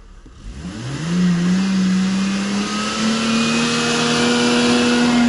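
Car engine revving up quickly about a second in, then held at high revs with the pitch creeping slowly higher.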